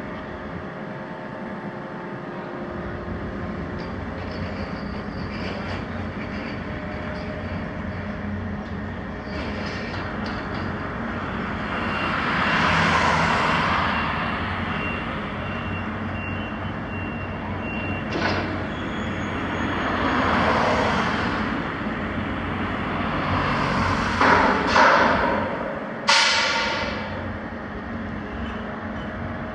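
Steady shipyard machinery din with several loud hissing swells of a second or two, the last starting sharply near the end.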